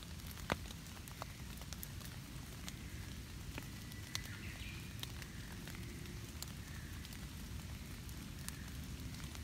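Rain falling on dead leaves and undergrowth: scattered, irregular drop taps over a steady low hiss, with one sharper tap about half a second in.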